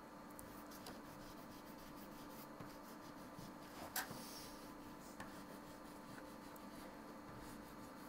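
Oil pastel stick rubbed over paper in short strokes: a faint, scratchy scrubbing, with one light tap about four seconds in.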